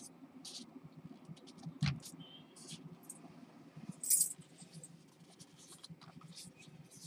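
Handling noise from a Hubsan X4 H501s quadcopter being lifted off a wooden table and turned by hand: scattered clicks and scratches, a knock just before two seconds in, and a louder rustling burst about four seconds in.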